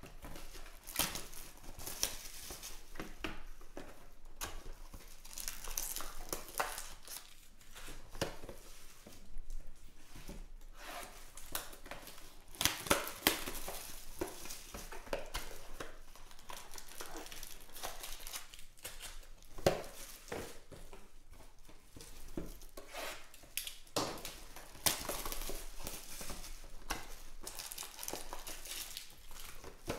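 Clear plastic shrink-wrap being torn off a cardboard trading-card box and crumpled in the hands, an irregular crinkling and crackling, along with the box and packs being handled.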